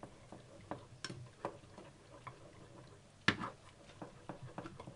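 A utensil tapping and scraping against a bowl as a thick green pastry mixture is stirred: a few scattered light ticks, with one sharper knock about three seconds in.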